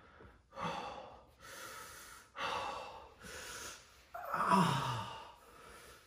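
A man breathing hard in pain: about five heavy breaths, the one about four and a half seconds in voiced as a low, falling groan.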